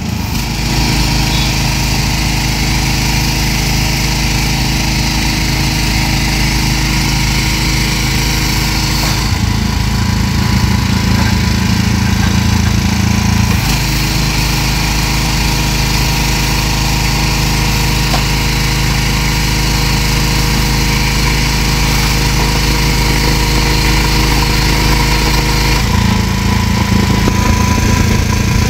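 Aipower APW 4400 high-pressure washer running on its 459 cc engine, with the hiss of the water jet spraying over the steady engine note. The spray cuts off about nine seconds in, comes back some four seconds later and cuts off again near the end, and the engine note changes each time it stops.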